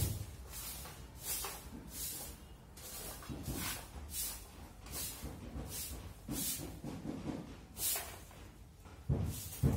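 Bare feet walking slowly across a ceramic-tile mosaic floor: a steady series of short, soft slaps a little more than once a second, with heavier thuds near the end.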